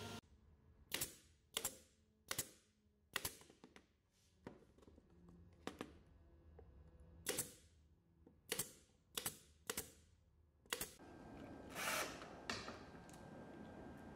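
A pneumatic brad nailer fires about ten times at uneven intervals, each shot a sharp snap, as nails are driven into a pine drawer box. Near the end a cordless drill takes over, running steadily with one louder burst as it drives a screw.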